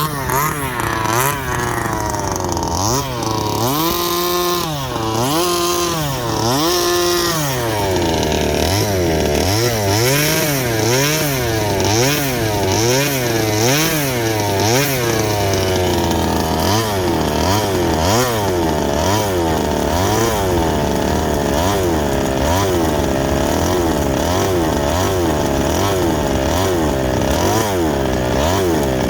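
Rovan Baja 32cc gasoline RC car's small two-stroke engine revving up and down over and over, its pitch rising and falling about once a second.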